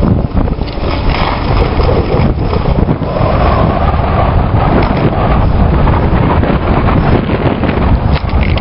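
Wind buffeting the microphone of a camera carried by a moving skier, a loud, steady rumble with the hiss of skis sliding over packed snow mixed in.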